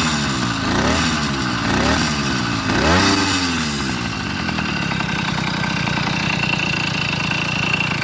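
Motorized bicycle's small two-stroke kit engine blipped four times, its pitch rising and falling with each rev, then settling into a steady idle about three seconds in.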